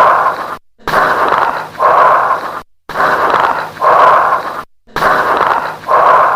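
Bronchial breath sounds heard through a stethoscope over the chest: loud breathing in and out about once every two seconds, with a short gap between inspiration and expiration. Late-inspiratory crackles come with each breath in. This pairing is typical of lung consolidation such as pneumonia.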